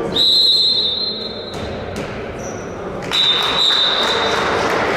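Referee's whistle blown twice in long, steady blasts of about a second and a half each, with a couple of sharp knocks, like the handball bouncing, between them.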